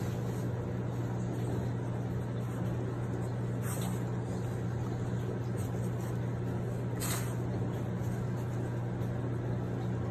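A steady low mechanical hum, like a motor or fan running, with two brief hissing noises about four and seven seconds in.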